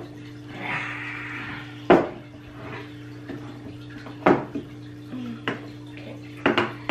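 A metal measuring cup clinking and knocking against a glass jar as it scoops out a dry baking ingredient: a series of sharp clinks, the loudest about two seconds in, with a short scraping rustle about half a second in.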